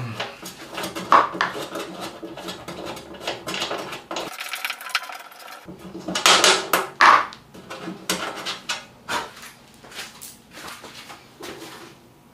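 Small metal clinks, taps and knocks from a wrench, screws and the metal top cover of a power amplifier being handled, with louder clanks about a second in and again around six to seven seconds in.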